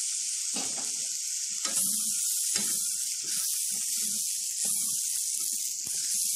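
Sausage and vegetables sizzling in a hot pot, with a spatula stirring and scraping through them in strokes about once a second.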